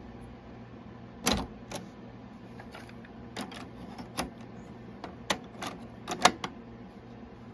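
Sanyo RD-5030 cassette deck's door popping open on eject with a loud clack about a second in, then a run of sharp plastic clicks as one cassette is taken out of the door and another fitted in, the loudest near the end.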